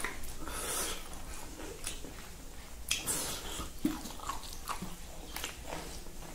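Eating by hand: chewing with wet lip smacks and small mouth clicks, and fingers scooping rice against a plastic plate, in short rustling scrapes.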